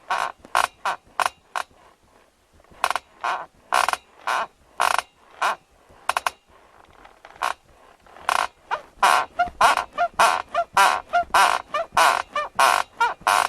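Bed squeaking with a run of short, high squeaks, irregular at first, pausing, then quickening to about three a second as the bed is rocked.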